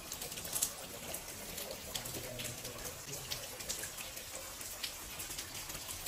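Rain falling and dripping: a steady hiss with many small scattered drip ticks.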